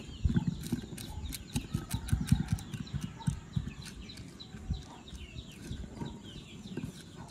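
Silicone pastry brush dabbing oil onto butter paper lining an aluminium bowl: a run of soft, irregular knocks and rustles, busiest in the first three seconds. Birds chirp throughout.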